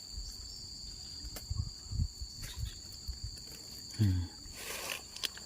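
Steady high-pitched chirring of crickets and other insects, with scattered low thumps and knocks. A short sound falling in pitch comes about four seconds in and is the loudest moment, followed by a brief rustle.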